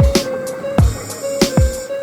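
Background music with a steady electronic beat, kick drum and held synth notes.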